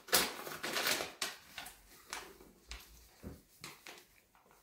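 Paper flour bag rustling and crinkling as it is handled and tipped over a stainless steel mixing bowl. The rustles come thick for about the first second, then a few separate ones follow.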